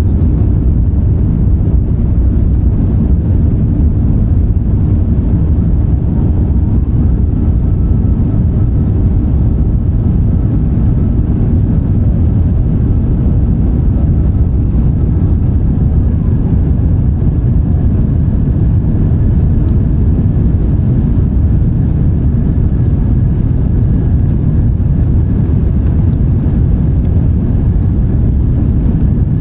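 Steady cabin roar of an Airbus A350-900 in the climb after takeoff: its Rolls-Royce Trent XWB engines and rushing air heard from inside the cabin, a deep even rumble with a faint thin whine over it.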